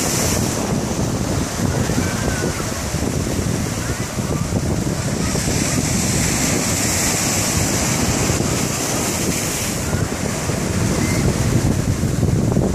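Ocean surf breaking and washing up the shore in a steady rush, with wind buffeting the microphone.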